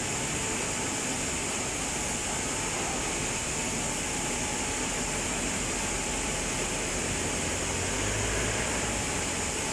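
Steady industrial noise beside an aluminium melting and holding furnace: a constant hiss and roar of plant machinery with a faint high whine. A low rumble swells briefly about eight seconds in.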